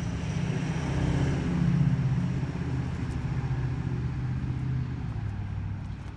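Engine idling steadily with a low hum, and a rushing noise that swells about one to two seconds in.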